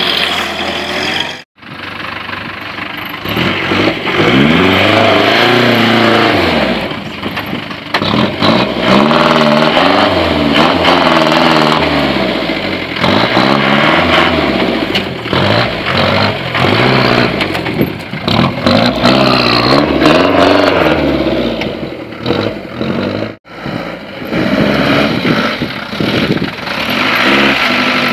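UAZ-469 off-roader's engine revving up and down again and again while it crawls over rocks under load, its pitch rising and falling with each blip of the throttle. The sound breaks off briefly twice.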